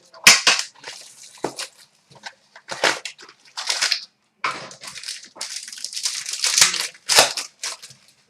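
Trading-card box and pack wrapper being torn open and the cards handled: an irregular run of sharp crackles and rustles.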